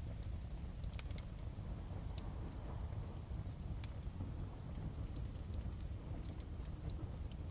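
Wood fire crackling in a fireplace, with irregular sharp pops and snaps, over a steady low rumble.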